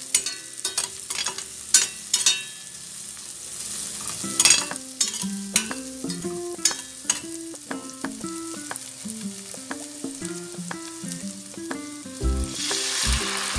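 Ginger, garlic and onion frying in butter and olive oil in a stainless steel pan, sizzling steadily while a utensil stirs them with repeated clicks and scrapes against the metal. About twelve seconds in, the hiss grows louder as chicken bouillon broth is poured into the hot pan.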